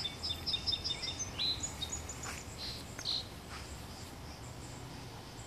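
A small songbird singing a quick run of short, high chirps during the first second or so, then a few scattered chirps, over a faint low outdoor rumble.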